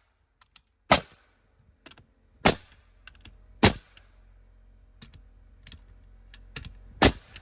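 Nails being driven into a wooden fascia board: four loud, sharp strikes about one, two and a half, three and a half and seven seconds in, with lighter clicks and taps between them.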